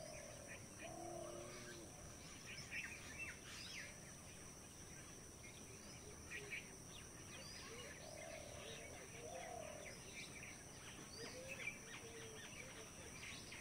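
Birds chirping all around, many short high chirps throughout. A lower two-part call comes near the start and again about two-thirds through. A faint steady high-pitched tone runs underneath.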